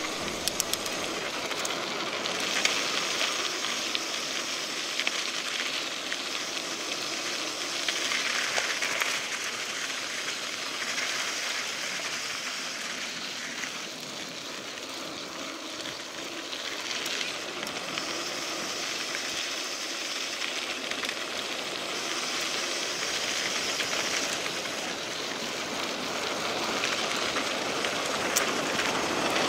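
Mountain bike rolling along a gravel dirt road: steady tyre noise on the gravel, with the bike rattling over the bumps.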